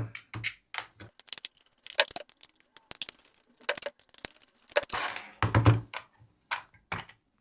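Plastic case of a cordless tool's battery pack being taken apart by hand, with irregular clicks, knocks and scrapes.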